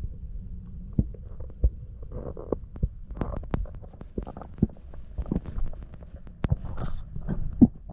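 Underwater sound heard through a GoPro's housing during a free dive: a steady, muffled low rumble of water with scattered, irregular clicks and knocks.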